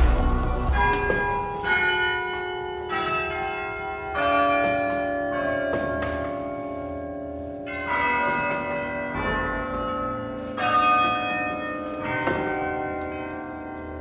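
Carillon bells played from the tower's lever keyboard: single bell notes struck one after another every second or so, each ringing on and overlapping the next to form a slow tune.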